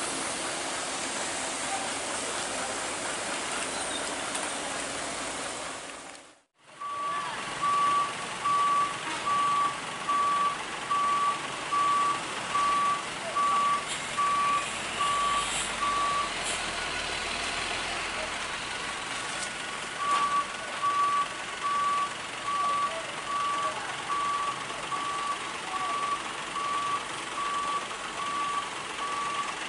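A truck's reversing alarm sounding a single-pitched beep about one and a half times a second over steady road noise. The beeping starts after a brief dropout early on, pauses for a few seconds midway, then resumes.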